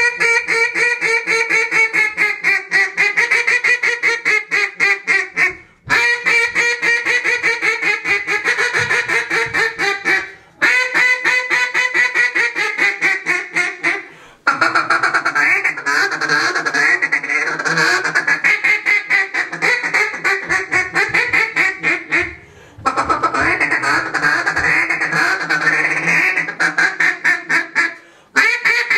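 Spalted maple barrel timber duck call blown in a close-in calling routine: long runs of rapid quacks, several a second, broken by four short pauses for breath.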